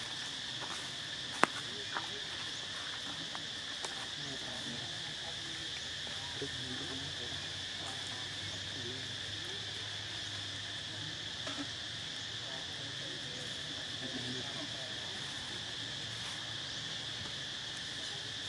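Insects chirping in a steady, high-pitched chorus. A sharp click stands out about a second and a half in, with a couple of fainter clicks soon after.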